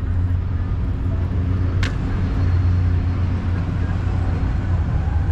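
Steady low rumble of city street traffic, with one brief sharp hiss about two seconds in.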